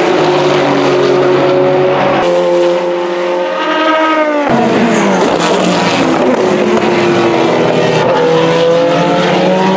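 Corvette C8.R race car's 5.5-litre flat-plane-crank V8 running hard on track, its pitch climbing as it accelerates, heard in several short shots that change abruptly about two, four and a half, and eight seconds in.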